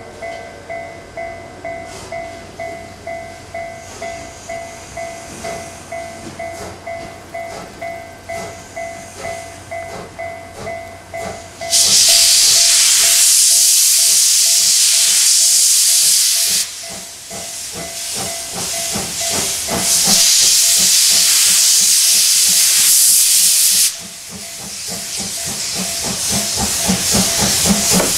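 A double-headed pair of steam locomotives, C57 1 leading a C56, pulling away with even exhaust chuffs. About twelve seconds in, the cylinder drain cocks blast out a loud hiss of steam, which stops and comes again a few seconds later. Near the end the chuffs grow louder as the locomotive passes close.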